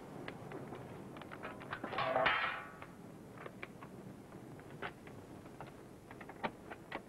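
Footsteps on pavement, then a brief rattling clatter about two seconds in. After that, a few sharp clicks as the car's door lock and handle are worked.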